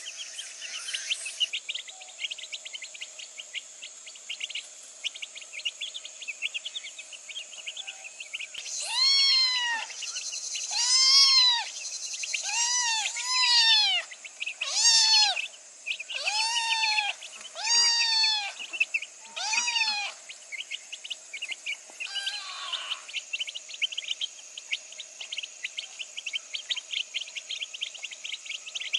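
A kitten meowing about eight times in a row between about nine and twenty seconds in, each meow rising and then falling in pitch, over continuous rapid high-pitched chirping.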